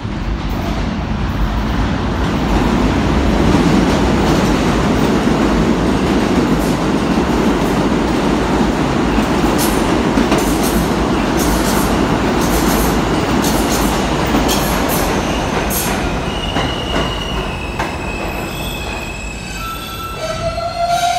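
2008 Kawasaki R160B subway train with Alstom propulsion pulling into an underground station: a loud rumble of steel wheels on track that peaks a few seconds in. Sharp clicks follow as the cars pass over rail joints, then high squealing tones in the last few seconds that step down in pitch as the train slows to a stop.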